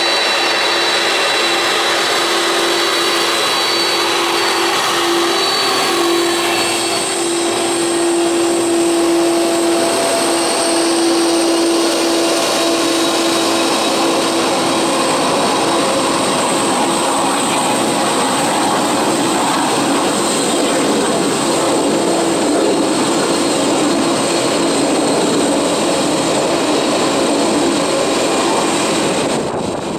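Boeing 747's four jet engines at taxi power as the airliner rolls past close by: a loud, steady rush with a low hum and a high whine that strengthens about seven seconds in, falling away just before the end.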